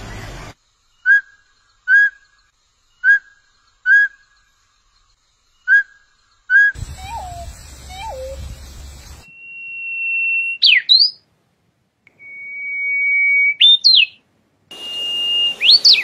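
A series of bird calls from several species. First a bird repeats a short single note about once a second. Then two falling, mewing calls, typical of a pheasant-tailed jacana. Last, three songs of a brown-flanked bush warbler, each a long steady whistle ending in a quick up-and-down flourish.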